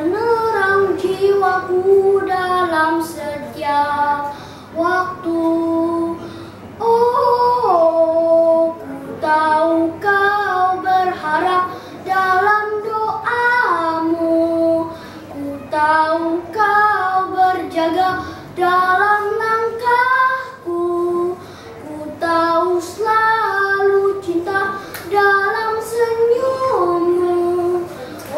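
A young boy singing a song solo, one voice alone with no accompaniment, moving through held notes with short breaths between phrases.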